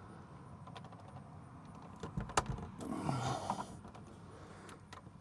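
Small plastic clicks and scraping from working at the snap-on outer case of an Atwood 31011 RV carbon monoxide and propane detector, trying to release its retaining prongs. One sharper click comes about two and a half seconds in, then a short scraping rustle.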